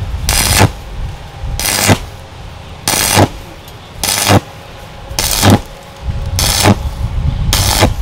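Stick-welding arc from a homemade welder built from a refrigerator compressor's motor coil, sizzling in short bursts about once a second as the rod is struck and pulled off again, seven times, with a steady low hum between bursts.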